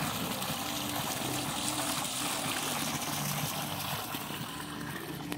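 Swimming-pool waterfall: a sheet of water spilling from a raised stone wall into the pool, giving a steady splashing rush.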